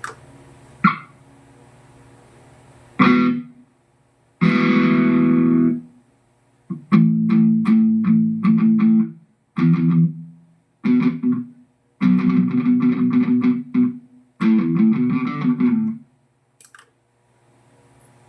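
Electric guitar played through a Mooer GE150 Pro LI multi-effects unit on a distorted tone: a few single chords, then short bursts of fast picked riffing, each cut off abruptly.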